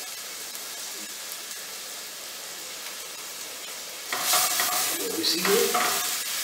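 Chopped onion and carrots sizzling in margarine and oil in a frying pan. From about four seconds in the sizzle gets louder as they are stirred with a spatula.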